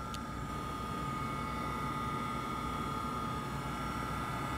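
Mitsui MSG-200 surface grinder's spindle motor running with the grinding wheel spinning free: a steady hum under a constant high whine, with one light click just after the start.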